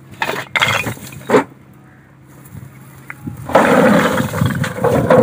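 Old fired bricks clattering onto a pile: a few sharp crashes in the first second and a half as a basin-load is dumped, then a wheelbarrow load tipped out, the bricks tumbling and scraping out together for about two seconds near the end.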